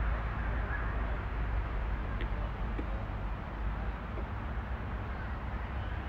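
Steady outdoor background rumble and hiss, heaviest in the low end, with a couple of faint clicks a little after two seconds in.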